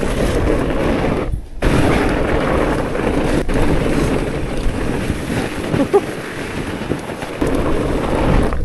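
Wind rushing and buffeting the microphone as a fat bike rolls downhill on a packed-snow trail, a dense low rumble broken off briefly about a second and a half in.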